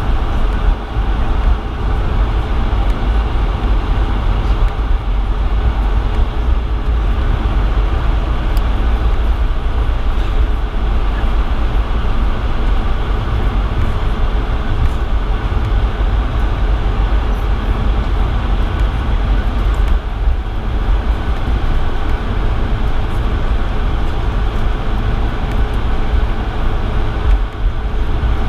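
Cabin noise inside a Bombardier CS100 airliner on the ground before takeoff: a steady low rumble of its Pratt & Whitney PW1500G geared turbofans at idle, with a faint steady hum above it.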